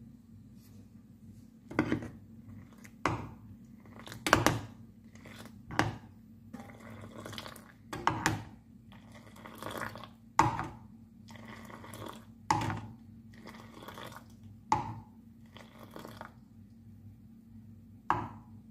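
Steel ladle knocking against a saucepan about ten times, one to two seconds apart, as it scoops up boiling milk tea and pours it back with a splashing hiss. A steady low hum runs underneath.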